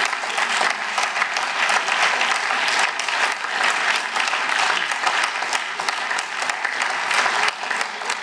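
Applause from a chamber of parliamentarians: many people clapping steadily.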